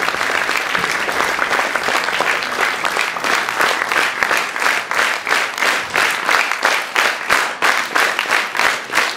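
Theatre audience applauding, the scattered clapping settling about three seconds in into rhythmic clapping in unison, roughly three claps a second.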